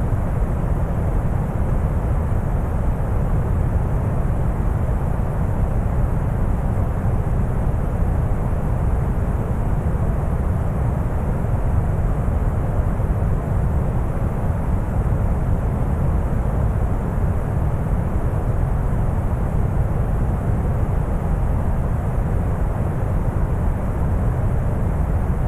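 Steady deep brown noise: an even rumbling hiss, heaviest in the bass and thinning toward the treble, with no changes or events.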